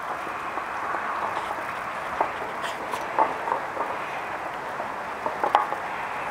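Puppies eating together from one food bowl: scattered small clicks and crunches of food and the bowl, over a steady hiss.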